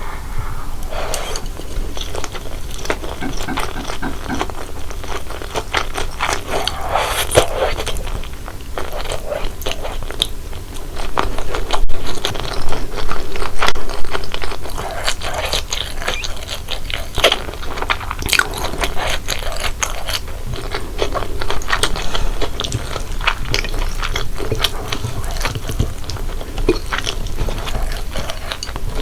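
Close-miked chewing and biting of corn cheese Buldak stir-fried noodles: a steady run of many small mouth clicks, louder for a few seconds about halfway in.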